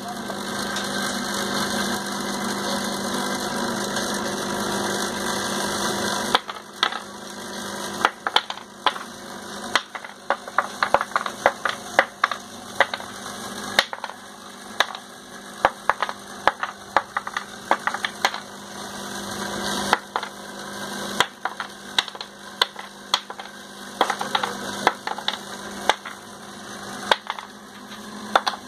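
Vibratory bowl feeder running with a steady electric buzz, louder for the first six seconds or so and then quieter, with small metal parts clicking and rattling irregularly as they are shaken along the bowl's track.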